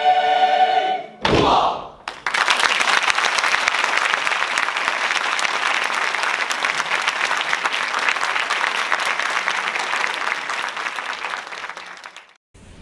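Mixed choir holding its final chord, closed by a short sharp accent about a second in; then a concert audience applauds for about ten seconds, cut off suddenly near the end.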